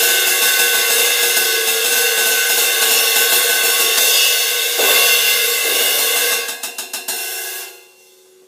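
19-inch Zildjian K Constantinople crash ride with three rivets, played with sticks: fast repeated strokes over a sizzling wash from the rivets, a heavier crash about five seconds in, and a few quick hits. The sound then cuts off sharply near the end.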